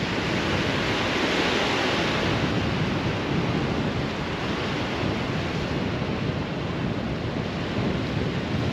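Small waves washing onto a sandy shore, a steady rushing that swells a second or two in, with wind buffeting the microphone.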